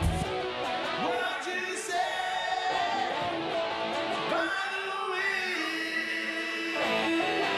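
Live music: a man singing over guitar. A heavy looped beat stops right at the start, leaving voice and guitar with little bass.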